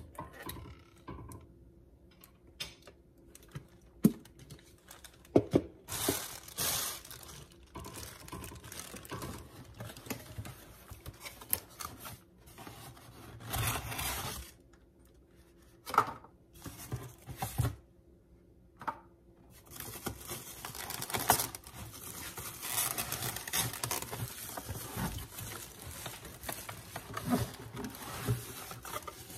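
Unboxing sounds: cardboard packaging rustling and scraping as inserts are pulled from the box, and plastic wrapping crinkling, with a few sharp knocks along the way. The crinkling is thicker over the last third.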